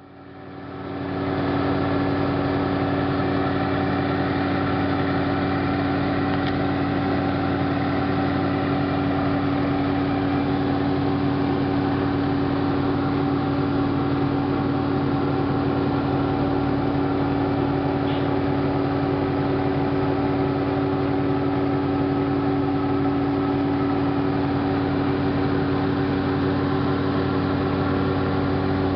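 Engine idling steadily with an even, unchanging hum, fading in over the first second or so.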